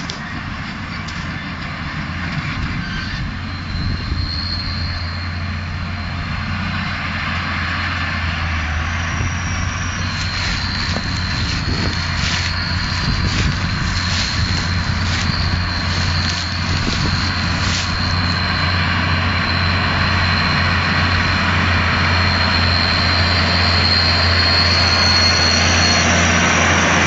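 Claas Ares 816 tractor engine running steadily while pulling a round baler, growing louder toward the end. A thin high whine sits over the low engine hum.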